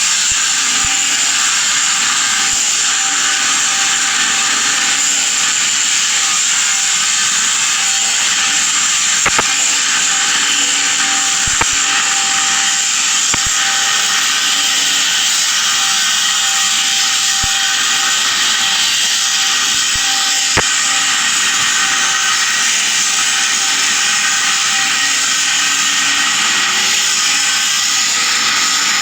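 Welding arc hissing steadily, with a few sharp pops scattered through it.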